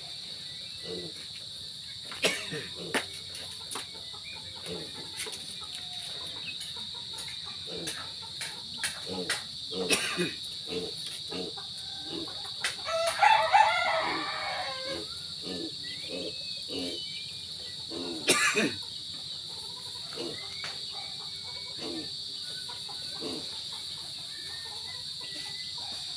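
A rooster crows once about halfway through, with chickens clucking on and off and a steady high insect drone beneath. A few sharp cracks stand out, the loudest near the end of the crow and once more a few seconds later.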